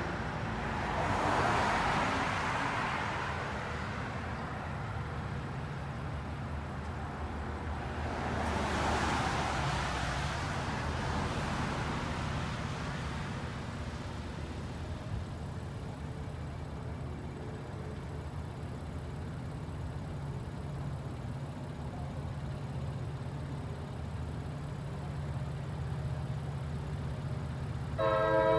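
Cars driving past on a road: two passing swells in the first dozen seconds over a steady low engine hum from slow traffic. Near the end, a train horn suddenly starts sounding its chord.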